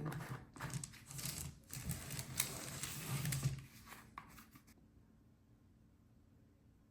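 Rustling, scraping and light clicks of silicone part A and part B containers being handled and measured out, for about four seconds before falling quiet.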